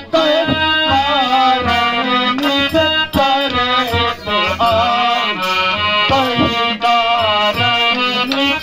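Harmonium playing a traditional melody in sustained reedy notes, accompanied by steady hand-drum strokes, as Ramlila stage music.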